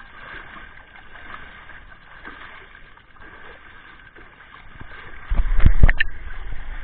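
Water splashing and pouring over an elephant's back as bathers throw it and scrub the hide. About five seconds in, loud low rumbling and a few knocks hit the camera microphone, and the sound stays louder after that.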